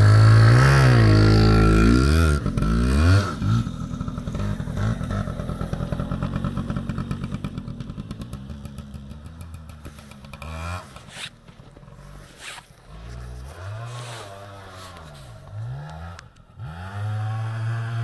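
Yamaha Big Wheel 80's small two-stroke single-cylinder engine revving hard close by, its pitch climbing and dropping as the semi-automatic box goes through the gears, then fading away over the next several seconds. Near the end it is heard revving again at a distance, rising and falling, and growing louder as the bike comes back.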